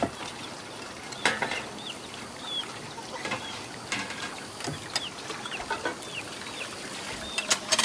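Chickens calling: many short, high peeps and clucks, with scattered sharp knocks and clicks, the loudest about a second in and a cluster near the end.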